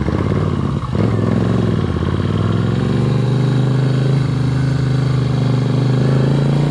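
Moto Guzzi V7 III's air-cooled transverse V-twin engine running, its note firming up about a second in and then holding steady.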